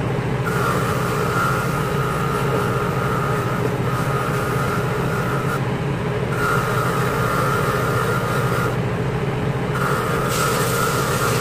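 Bench grinder running with a steady hum while a Mazda 13B rotary engine rotor is pressed against its wheel to clean it. The grinding comes in four passes of a few seconds each, with short breaks between, the first starting about half a second in.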